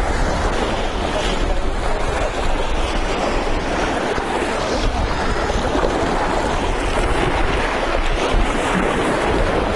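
Steady rushing of wind on the microphone and water washing along the shore, with gusty low rumble.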